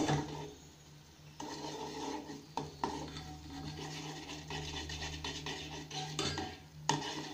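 Metal spoon stirring and scraping around the bottom of a metal pot of hot decoction as jaggery is mixed in, with a few light clinks, over a steady low hum.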